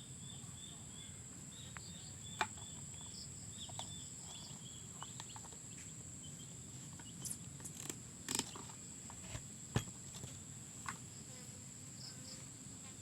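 Steady high drone of insects with a run of quick repeated chirps, over a low hum, broken by scattered sharp clicks and knocks of handling, the loudest around eight and ten seconds in.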